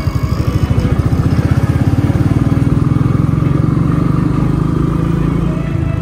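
Motorcycle engine running steadily while riding, a fast even throb that grows louder over the first two seconds and then holds.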